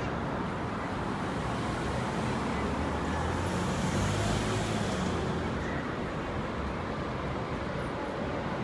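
City street traffic: a steady wash of road noise, with one vehicle's engine and tyres swelling as it passes about three to five seconds in.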